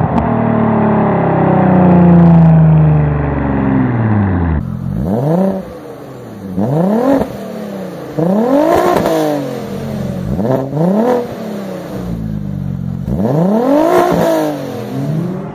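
Straight-piped Audi B5 S4's twin-turbo V6, its note falling steadily in pitch. About four and a half seconds in, a different recording starts: a car engine revved in about five sharp blips, each rising and dropping back quickly.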